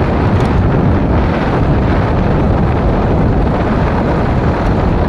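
Steady wind buffeting and rushing over the microphone of a moving vehicle, loud and even, with the vehicle's road noise underneath.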